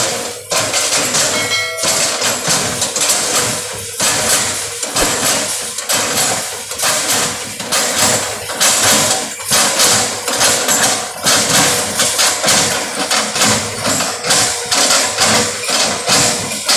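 Excavator engine running steadily, with repeated knocks and clatter throughout.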